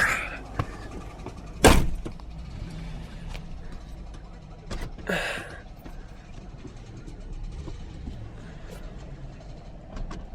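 Cadillac Northstar V8 idling with a steady rapid ticking, after the car sat unstarted for a year; the owner cannot place the tick and wonders if it is the water pump. One loud thump about two seconds in.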